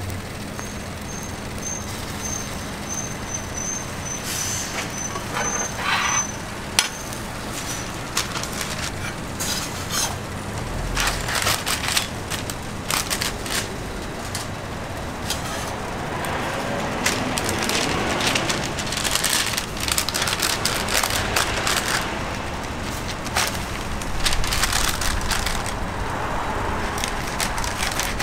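Toast sizzling on a flat-top griddle, with the clicks and scrapes of a metal spatula. Denser rustling and handling noise comes in the last part, as the sandwich goes into a paper wrapper.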